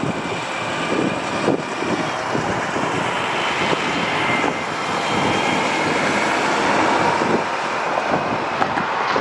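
Road vehicles driving by, a steady rush of engine and tyre noise, with wind on the microphone.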